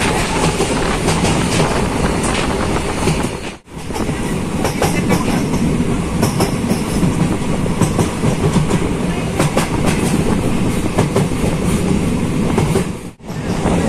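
A passenger train running along the track, heard from on board: a steady rumble with the clickety-clack of wheels over the rail joints. The sound drops out briefly twice.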